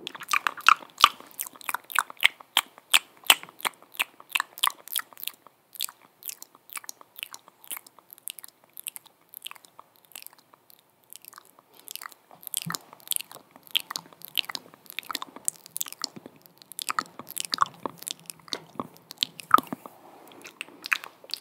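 ASMR mouth sounds close to the microphone: rapid wet tongue clicks and lip smacks, several a second, thinning out and growing quieter in the middle before picking up again.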